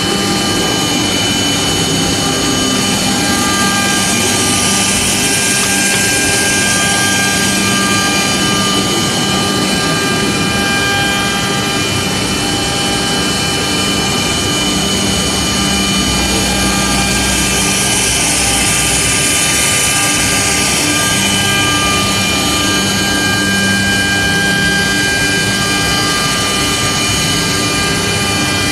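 CNC router running, its high-speed spindle giving a steady, layered whine over a hiss of machining noise that swells twice.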